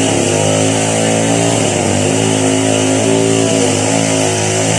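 Chainsaw engine running loud and steady, its pitch dipping briefly about two seconds in and again near the end, as it is worked in a cut.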